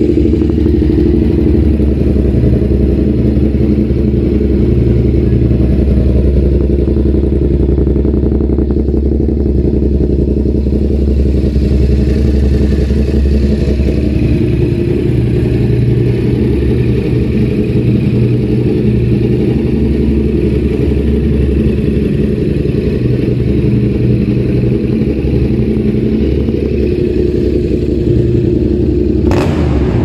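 Yamaha MT-07's parallel-twin engine running at a steady idle through an Austin Racing aftermarket exhaust, with a brief sharp click near the end.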